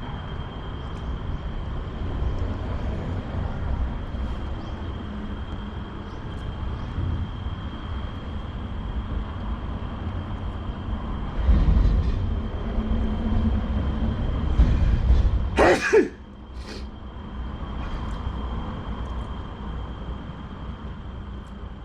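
A person sneezes once loudly, suddenly, about sixteen seconds in, after a few seconds of a voiced build-up, with a short second burst a second later. A thin steady high tone and low background noise run underneath.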